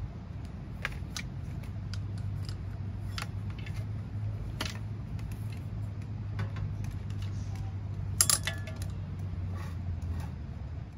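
Scattered light clinks and taps of small hard objects over a steady low hum, with one louder metallic clink about eight seconds in that rings briefly.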